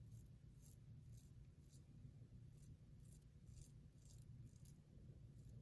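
Faint, crisp scratching of a double-edge safety razor blade drawn through lather and stubble in short strokes, about two a second, over a low steady room hum.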